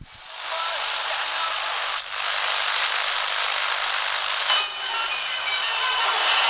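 Radio static: a steady, band-limited hiss that fades in at the start, with faint whistling tones drifting in and out and a couple of brief crackles.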